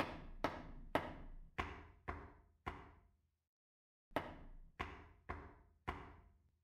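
A series of sharp knocks, each ringing out briefly: six in about three seconds, a pause of about a second, then four more.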